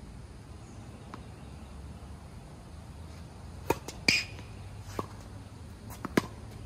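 Tennis ball being struck by rackets and bouncing on the court: a handful of sharp pops over about two and a half seconds, the loudest about four seconds in with a brief ring after it, over a low steady hum.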